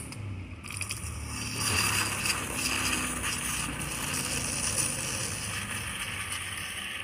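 Hot drink machine dispensing hot chocolate into a cup. A click, then a steady low pump hum with a hiss of liquid.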